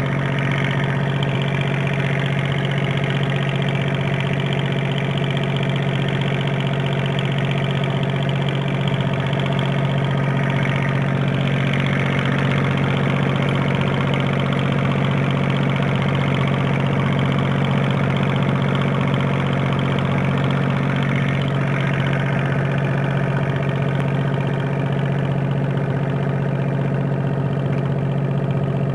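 Fishing boat's engine running steadily at an even speed, heard from aboard the boat.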